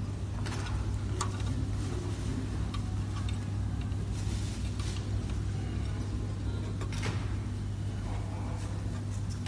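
Metal guide rails of a blister opening machine clicking and scraping a few times as they are slid and set by hand to the blister's size, over a steady low hum.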